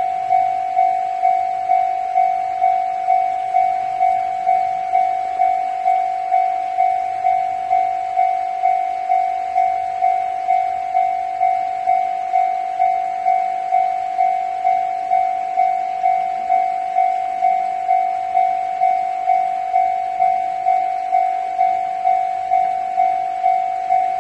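Japanese railway level crossing warning bell ringing, an even ding repeated about five times every three seconds.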